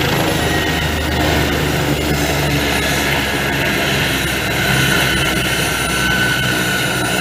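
Light turbine helicopter running on the ground: a steady turbine whine over rotor and engine rumble, the whine growing a little stronger in the last couple of seconds.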